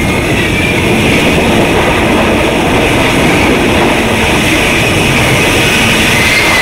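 F-35B's F135 jet engine driving its shaft-powered lift fan at high power for a vertical takeoff. It makes loud, steady jet noise with a high whine that rises slightly near the start and dips near the end.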